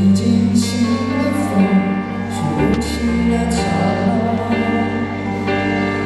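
Live band playing: sustained keyboard chords over bass and electric guitar, with cymbal crashes every second or so.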